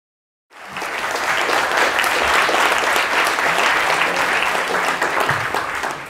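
Lecture-hall audience applauding, many hands clapping at once, starting abruptly about half a second in.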